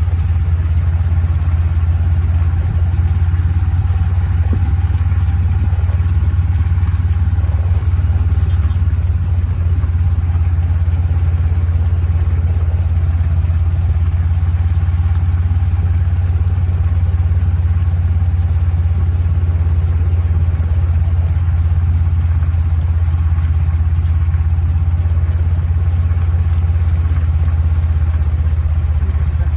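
Vehicle engine running steadily: a loud, even low drone that holds the same pitch throughout.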